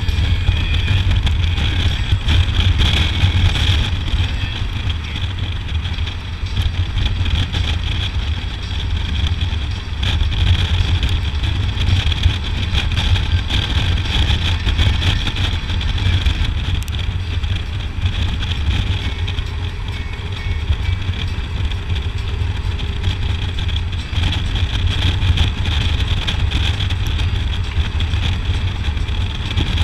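Harley-Davidson Road Glide's V-twin engine running steadily at cruising speed, mixed with wind rushing over the microphone.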